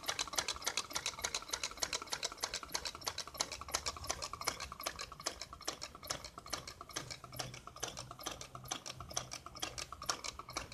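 Homemade soda-can Stirling engine running over a small flame, its wire crank and linkages clicking in a steady rhythm of about six clicks a second. The engine is beginning to weaken.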